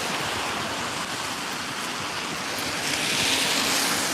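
Steady hiss of rain, swelling slightly about three seconds in.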